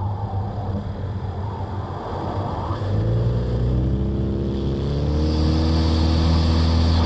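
2017 Ford Escape's 2.0 EcoBoost turbo four-cylinder, airbox lid off, running steadily and then accelerating from about three seconds in, its note climbing under load. A rising turbo whistle builds over the top from about four and a half seconds in, and both drop away at the very end as the throttle comes off or the gear changes.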